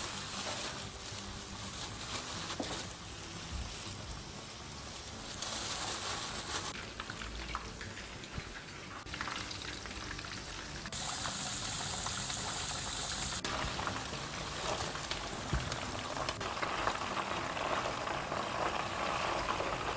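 Flour-coated chicken pieces deep-frying in canola oil in a frying pan: a steady bubbling sizzle that shifts abruptly in tone several times, with a brighter, hissier stretch about eleven to thirteen seconds in.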